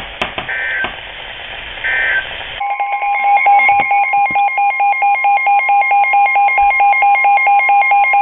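Weather radio alert signalling: two short bursts of digital data tones over radio hiss, typical of the end-of-message code closing a NOAA Weather Radio warning. Then a steady alert tone comes in with a fast, even pulsing beep of two pitches over it.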